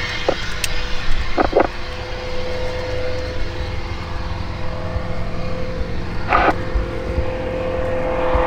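An engine running steadily, a constant droning hum over a low rumble, with a couple of short knocks about a second and a half in and again about six seconds in.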